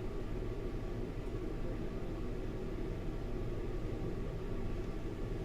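Steady low background hum with a faint hiss, even throughout: room tone with an air-conditioning or fan-like drone.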